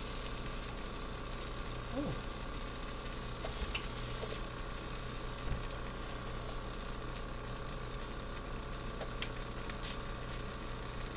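Sub rolls toasting in butter in a hot frying pan: a steady sizzle. Two sharp clicks come about nine seconds in.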